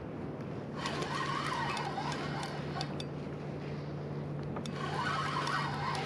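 Spinning reel whining under load as a hooked lingcod is fought up, the whine wavering up and down in two stretches, with scattered light clicks.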